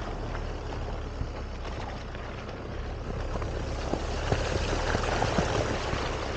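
Off-road vehicle engine running low and steady, with scattered clicks and a louder rough noise building from about four seconds in.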